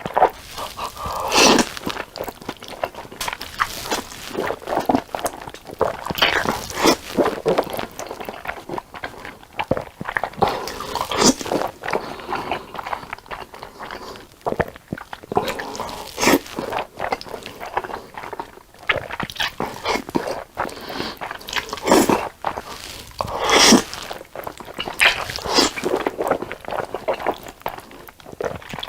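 Close-miked eating of black bean noodles: big slurps of noodles every few seconds between wet, smacking chewing, with a few crunchy bites.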